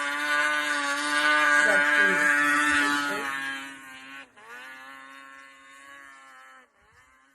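Snowmobile engine held at high revs with a steady, high-pitched note. About four seconds in the revs drop and the sound falls away, running quieter until it cuts off near the end.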